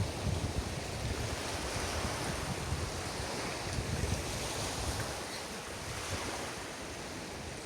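Surf washing on a beach, a steady rush of waves, with wind buffeting the microphone in low gusts that ease off over the second half.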